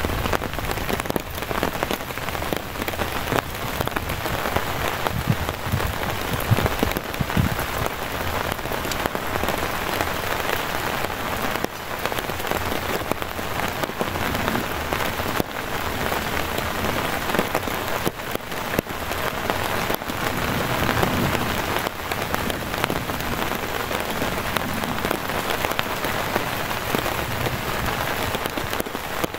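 Heavy rain falling steadily: a dense, even hiss with many individual drops ticking close by.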